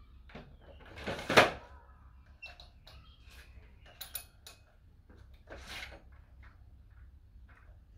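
Adjustable dumbbell clunking down into the cradle of its stand with one loud knock about a second and a half in. Lighter clicks follow, then a clatter of the plates as the dumbbell is lifted out again, leaving some plates behind in the cradle.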